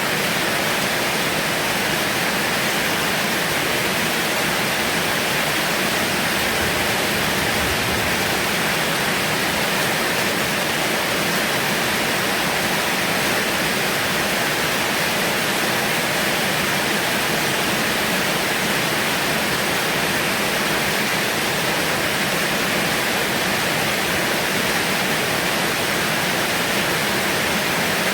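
Heavy rain falling steadily: a dense, even hiss with no breaks and no thunder.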